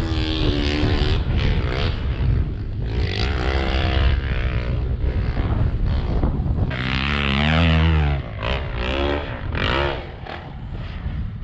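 Dirt bike engine revving up and down over and over, its pitch rising and falling, loudest about seven to eight seconds in and easing off near the end.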